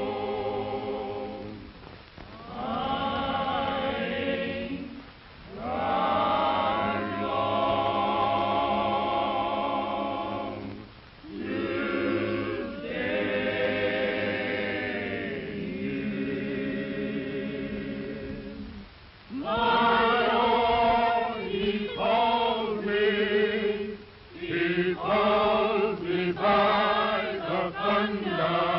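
A choir singing slowly in long held phrases, with short breaks between them; the singing grows louder about two-thirds of the way through.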